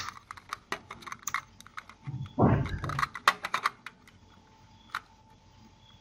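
Plastic-and-metal clicks and rattles of a parallel-to-USB cable's 36-pin connector being handled and pushed into a printer's parallel port, with a louder bump about two and a half seconds in and one last click near the end.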